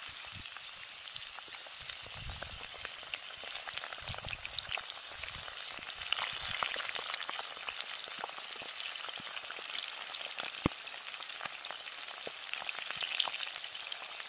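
Loaches coated in potato starch deep-frying in a wok of hot oil, their first fry: a steady sizzle with dense crackling and many small pops. One sharper snap stands out a little after the ten-second mark.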